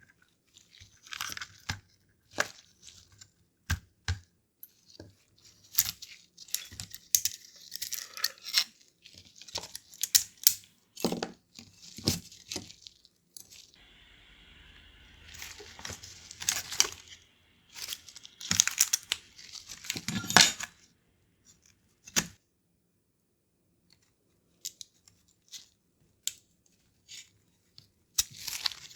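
Irregular clicks, scrapes and rustling of a Nintendo DSi XL's plastic shell and small internal parts being handled and pried apart by hand. The sounds stop for several seconds near the end.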